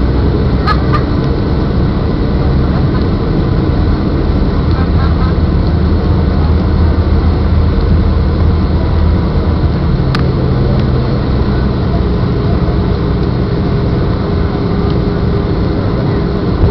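Steady cabin noise of a Boeing 757 on its landing approach, heard from a window seat by the wing: jet engines and rushing airflow, with a steady hum running through it. Two brief clicks, about a second in and about ten seconds in.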